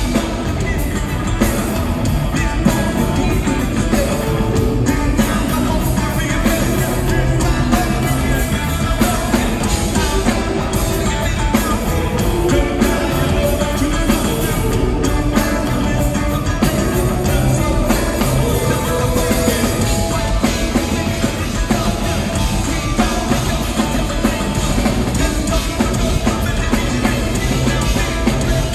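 Live rock band playing through an arena PA, heard from the seats: electric guitar, bass guitar and drum kit, with vocals over the top.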